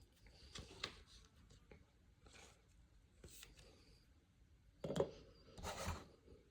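Baseball trading cards being handled and slid against one another, giving soft, scattered rubbing and brushing sounds, with two louder brushes about five and six seconds in.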